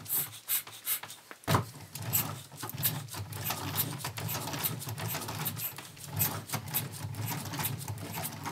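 LEGO Technic pneumatic engine running: plastic parts clicking and air puffing about twice a second as the cylinder and valve cycle, over a steady low hum. One sharper knock about a second and a half in.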